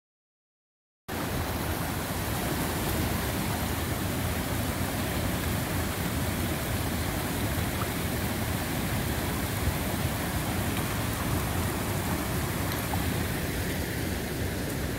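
A steady, even rushing noise that starts suddenly about a second in and cuts off abruptly at the end.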